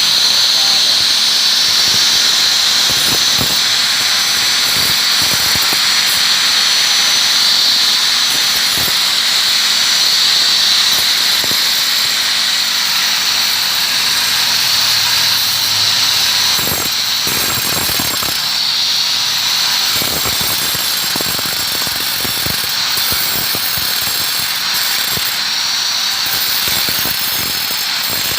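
A power tool working on stone runs continuously with a high, hissing whine and scattered clicks. It gets a little quieter about halfway through.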